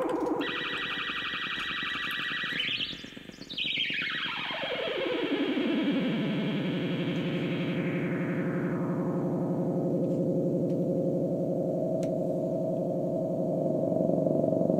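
ARP 2600 analog synthesiser sounding a held, buzzy note. About three seconds in the pitch sweeps up, then glides down to a low steady drone that turns duller as its upper overtones fade away.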